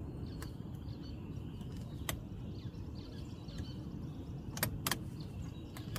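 Small tools clicking against the spring-wire release clips behind a Tesla's steering-wheel airbag as they are worked to unlatch it: a few short sharp ticks over a steady low background rumble.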